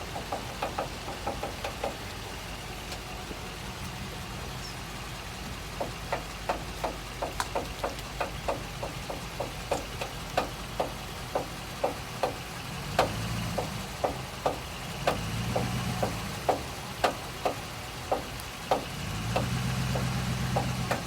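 Rhythmic clicking from the front left wheel of a 2010 Dodge Ram pickup turning left, a few sharp clicks a second, over the truck's low engine hum, which swells a few times in the second half. The noise persists with a new hub and wheel bearing fitted, so that part is ruled out as the cause.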